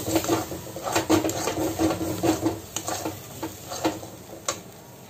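A metal spatula stirring and scraping a thick onion-tomato masala paste around a metal kadai, with short knocks of the spatula against the pan. The spices are being fried into the paste. The strokes thin out and get quieter near the end.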